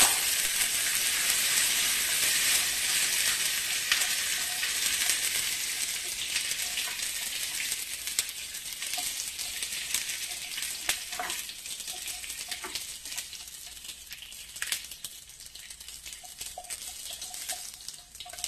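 Cashews, raisins and curry leaves frying in hot coconut oil in a small pan, sizzling loudly at first and fading gradually. Occasional clicks and scrapes come from a wooden spatula stirring them.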